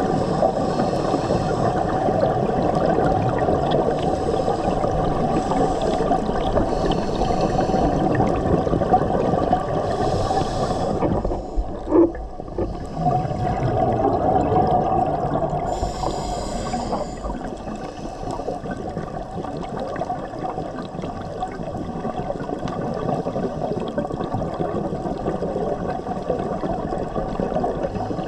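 Underwater scuba-dive sound heard through a camera housing: a steady muffled rumble of water, with a few hissing bursts of exhaled regulator bubbles several seconds apart. A sharp click comes about twelve seconds in.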